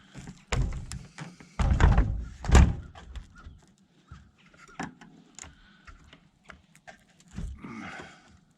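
Deer-hut door with broken hinges being handled and pulled shut: a series of heavy thunks and knocks, the loudest about two and a half seconds in, then lighter clicks and knocks.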